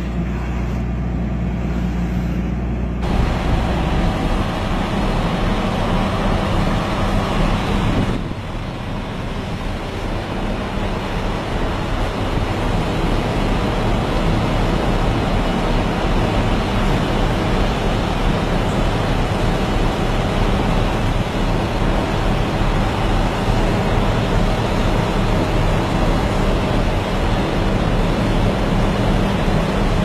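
Heavy machinery engine running with a steady low drone under dense mechanical noise. The sound changes abruptly about three seconds in and again about eight seconds in.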